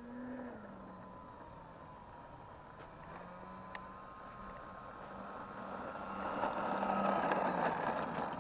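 Twin electric motors and propellers of a radio-controlled P-38 Lightning model taxiing on the ground. The whine rises in pitch as the throttle comes up, holds steady, and grows louder with a rush of prop wash as the plane draws near, then its tone drops away shortly before the end.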